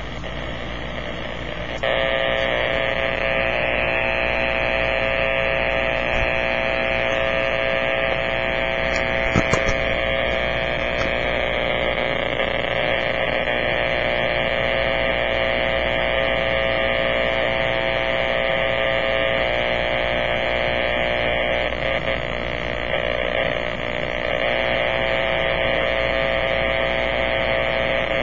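Powerline noise received on a Kenwood amateur transceiver in AM mode around 50 MHz, heard through the radio's speaker as a harsh, steady buzz with hiss. It gets louder about two seconds in, and there is one brief click near the middle. The buzz is the sign of interference radiated from a fault on the power line.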